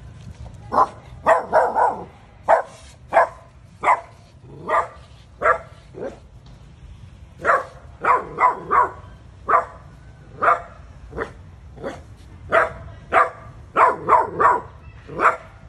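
Small dog barking over and over, one to two short, sharp barks a second, with a brief pause about halfway through.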